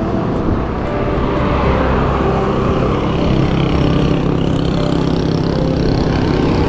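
Steady wind noise buffeting the microphone of a handlebar-mounted camera on a moving road bicycle, mixed with the hum of the tyres rolling on the road.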